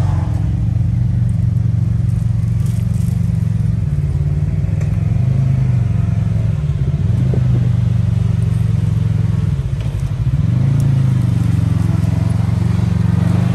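Side-by-side UTV engine running at low, fairly steady revs; about ten seconds in the revs drop briefly, then rise again.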